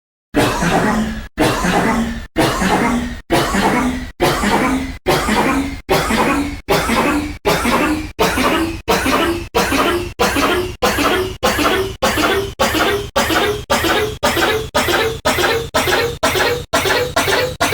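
The same recorded cough repeated about thirty times in a row, each time sped up a little, so the coughs come faster and higher in pitch. The gap shrinks from about one second to about half a second.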